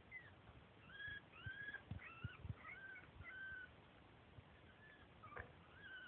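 Guinea pig squeaking: a run of about eight short high squeaks over the first three and a half seconds, then a few more near the end, with a few low soft thumps in between.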